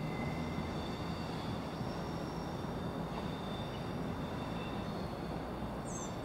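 Class 66 diesel locomotive, whose two-stroke V12 engine runs with a steady low drone as it approaches slowly.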